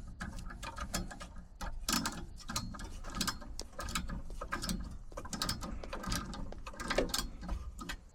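Irregular light clicking and rattling of small hard objects, with a few sharper ticks scattered throughout.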